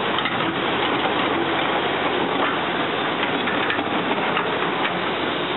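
Heavy construction machinery running: a steady diesel engine noise with a few light clanks.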